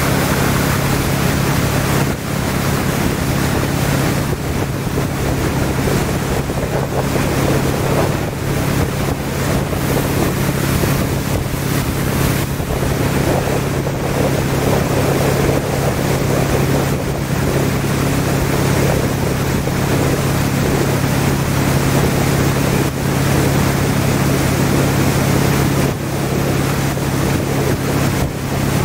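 Motorboat engine running steadily at speed, with water rushing and wind buffeting the microphone.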